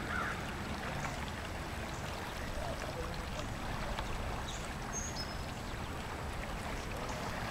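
Steady rushing of a river's current, an even noise without breaks.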